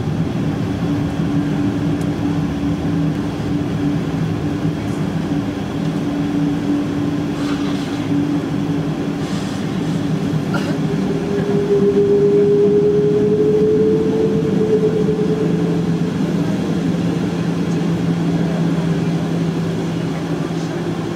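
Cabin noise inside a Boeing 777-200 taxiing: the steady drone of its engines at taxi idle over an even rush. A little after the middle a higher hum comes in, rises slightly, and fades a few seconds later.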